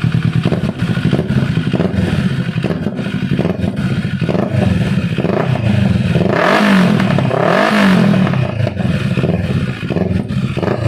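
Kawasaki Z650's parallel-twin engine idling through an aftermarket exhaust with a steady, full note, then blipped twice about six and eight seconds in, each rev rising and falling back to idle.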